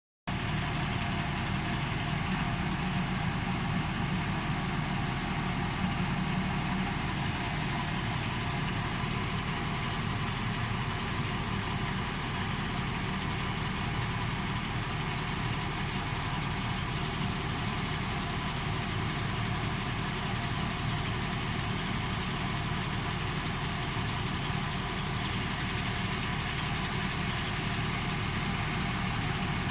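Engine of a towable backhoe running steadily at a constant speed.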